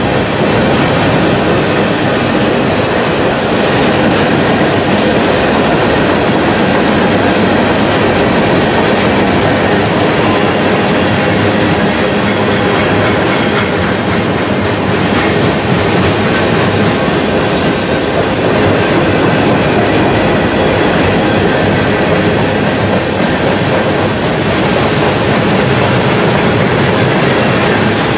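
Freight train cars rolling past at close range: a steady, loud noise of steel wheels running on the rails, with the rattle of boxcars and tank cars.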